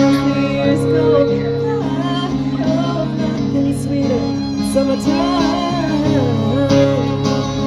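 A band playing country music: acoustic guitar with a melody line that includes singing.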